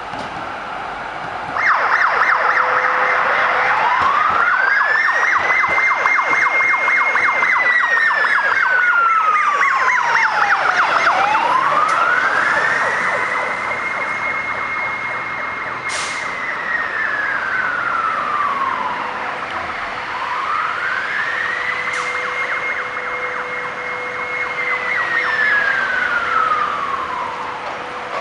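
Fire engine siren switched on: a rapid pulsing tone at first, then a slow wail rising, holding high and falling, about three times over.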